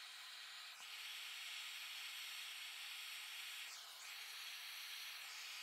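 Handheld gas torch flame hissing steadily while heating a copper pipe fitting to sweat-solder it. The hiss grows louder about a second in and dips briefly near four seconds.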